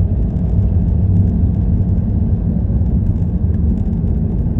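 Steady low rumble of a car driving along at road speed, tyre and engine noise heard from inside the cabin.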